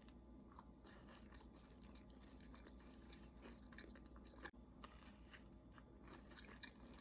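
Faint chewing of a s'mores cookie, mostly quiet with small scattered mouth clicks that come a little more often in the second half.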